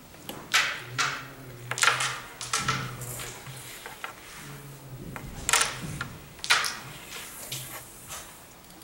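Carrom striker flicked into the coins on a carrom board: a series of sharp clacks, several in the first three seconds and more about five to seven seconds in.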